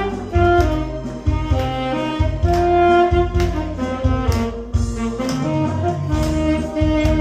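Saxophone playing a melody of held notes over a backing track with a steady bass beat and percussion.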